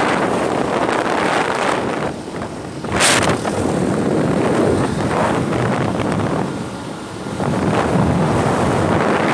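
Wind buffeting the microphone of a phone filming from a moving motorcycle on an open highway, a steady loud rush with road noise underneath. A brief, louder rush comes about three seconds in.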